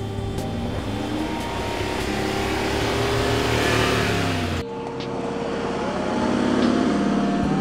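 Mercedes-Benz G-Class engine accelerating as the SUV drives past close by over gravel, rising in pitch, with the crunch of tyres on gravel growing louder. About four and a half seconds in it cuts sharply to the engine pulling steadily as the G-Class climbs a steep slope, its pitch rising once more.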